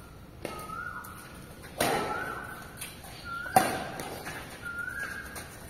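Badminton rackets striking a shuttlecock in a rally: three sharp smacks, the loudest about three and a half seconds in, each with a short ringing after it. A short rising whistle-like tone repeats about once a second throughout.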